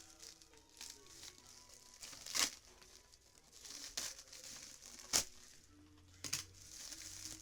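Packing material crinkling and tearing as a shipping box of printed comics is unpacked by hand, with four sharp crackles along the way.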